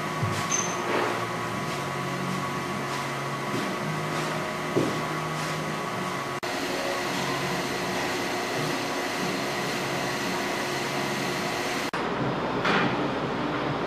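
Stainless-steel inclined screw conveyor running, its motor and auger giving a steady mechanical hum with a held whine, and a few faint knocks.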